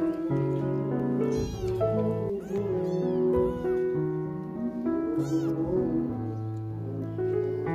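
A kitten meowing, about three short, high calls, over background piano music.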